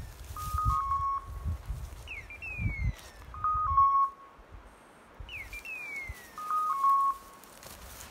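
Electronic beeper collar on a pointing English setter sounding its point-mode signal: a falling screech followed by a held two-note beep, repeating about every three seconds, the sign that the dog is standing still on point. Footsteps thump through the undergrowth in the first half.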